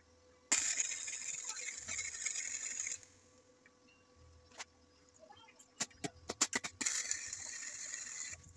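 MIG welding arc crackling on scrap iron in two steady bursts, the first about two and a half seconds long, the second about a second and a half near the end, with a quick run of sharp pops just before the second.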